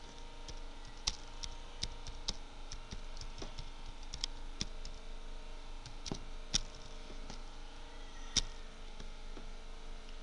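Typing on a computer keyboard: an irregular run of key clicks, with a few sharper, louder strokes.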